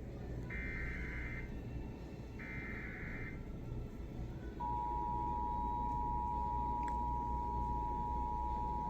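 Emergency Alert System header: two separate bursts of warbling digital data tones, each about a second long. About a second after the second burst, the steady two-tone EAS attention signal (853 and 960 Hz) starts and holds, over a low background hum.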